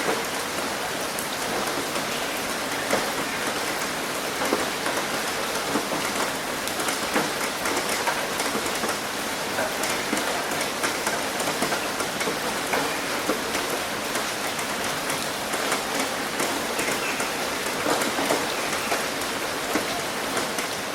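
Heavy rain pouring steadily onto a roof and splashing on concrete, a dense even hiss with many individual drops ticking through it.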